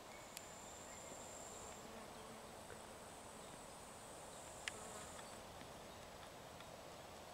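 Faint, high-pitched insect trill, a steady buzz that breaks off briefly about two seconds in and stops about five seconds in. Two short clicks.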